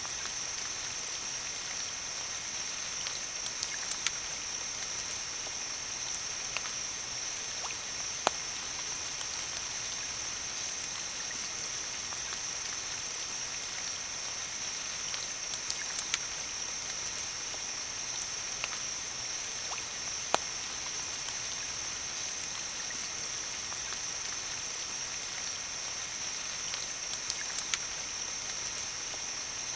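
Light rain falling: a steady hiss with scattered drops ticking, and a few sharper taps now and then.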